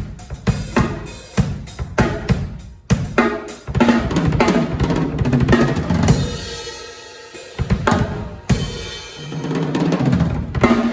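Yamaha Rydeen acoustic drum kit being played: quick bass drum and snare strokes, then denser fills with ringing, a short lull where the kit rings on, and playing picks up again near the end.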